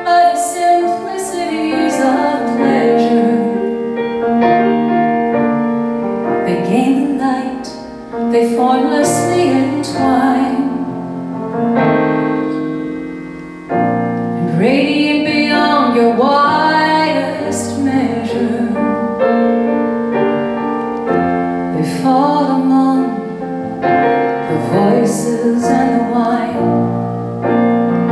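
A woman singing with piano accompaniment, live. Her line pauses briefly a couple of times, about eight and thirteen seconds in, before resuming.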